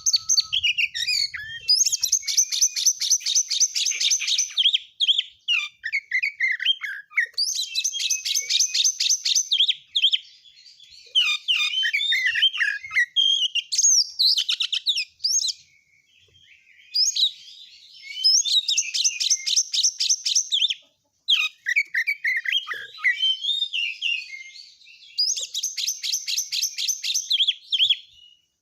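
Oriental magpie-robin (kacer) singing a long, fast, tightly packed song. Several bursts of rapid rattling notes alternate with varied whistled and chattering phrases that hold mimicked calls of other birds. There are two brief pauses along the way.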